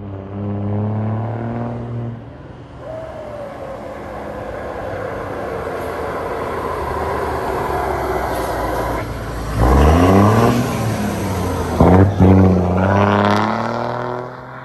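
Diesel engine of a heavy box truck with a modified exhaust, accelerating hard as it drives past. The engine note grows louder as it approaches, then revs climb twice with a short break in between, loudest as the truck goes by, before fading away.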